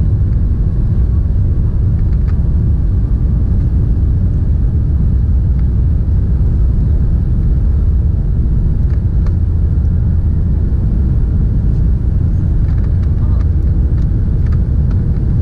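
Steady low rumble inside the cabin of an Airbus A380 taxiing, heard at a window seat over the wing, with a few faint clicks.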